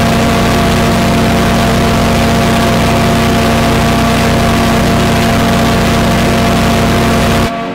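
The RMS Titanic's first-funnel ship's whistle blowing one long, steady blast: a chord of deep held tones over a hiss. It cuts off sharply near the end and echoes away.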